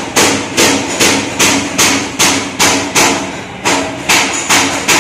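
A hammer striking metal in a steady rhythm, about two to three blows a second, each blow ringing briefly.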